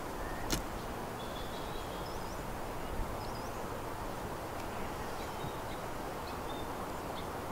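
Steady background hiss of the woods with faint, short high bird chirps now and then, and one sharp tap about half a second in.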